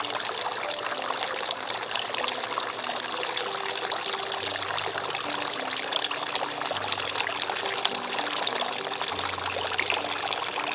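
Tiered fountain with a bubbler at the top running: water spilling over and dripping and streaming down into the pools below, a steady splashing trickle.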